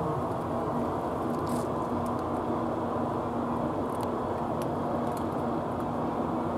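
Steady low mechanical rumble with a constant hum running under it, without a break.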